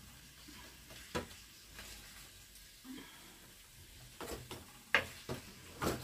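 A kitchen knife cutting squid on a wooden cutting board in a few sharp knocks, most of them near the end, over soft scraping of a wooden spatula stirring squid in a frying pan.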